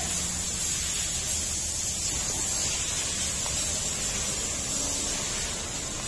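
Water spraying from a garden hose onto a wet concrete floor: a steady hiss.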